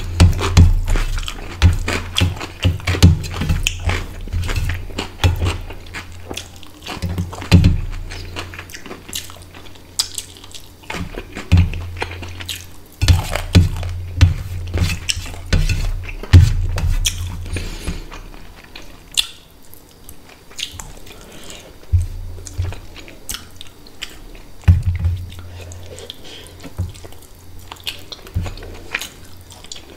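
Chewing rice and fish curry, with fingers mixing and scraping rice on a steel plate: many small clicks and taps, busier in the first half and sparser later.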